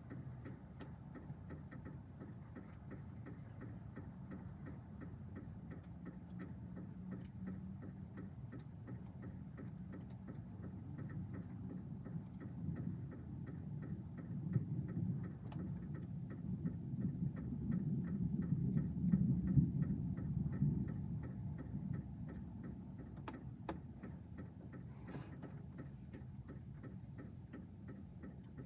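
Thunder rumbling low and deep, swelling up about halfway through, peaking a few seconds later and then dying away, over a continuous run of light regular ticking.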